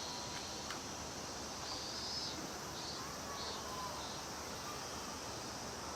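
Cicadas droning steadily in a high, even buzz, with a couple of short higher calls over it, about two seconds and three and a half seconds in.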